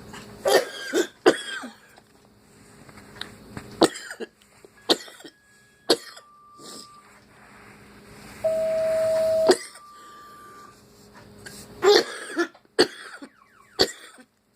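A person's coughing fit: two coughs close together about half a second in, then single coughs at intervals, and several in quick succession near the end. About two thirds of the way through, a loud steady single-pitch tone lasts about a second.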